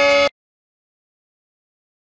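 The end of a Bengali devotional song (shyama sangeet) on a held, steady chord, cut off abruptly a fraction of a second in; after that, complete digital silence.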